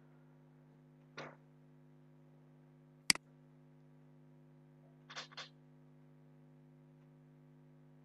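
Steady low electrical hum on the line, broken about three seconds in by a single sharp computer-mouse click. Fainter short noises come about a second in and twice around five seconds.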